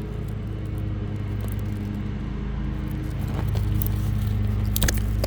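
A steady motor or engine hum holding one pitch, with a few sharp clicks near the end.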